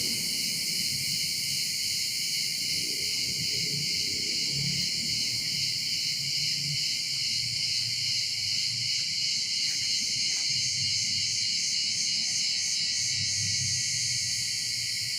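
Steady, high-pitched chorus of insects buzzing and chirring in a forest.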